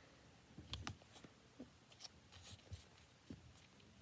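Faint handling of a small cardboard lip gloss box being drawn out of a subscription box: a few soft scrapes and light taps scattered through.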